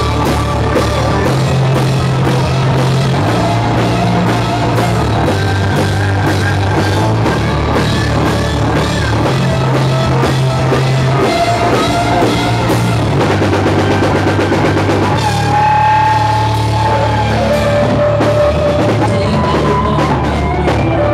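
Live rock band playing loud with electric guitars, bass and drum kit, the drums keeping a steady driving beat.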